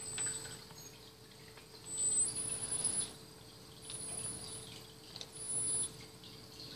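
Four or five short, very high, thin chirps, spaced a second or two apart, one gliding upward, over a faint steady hum.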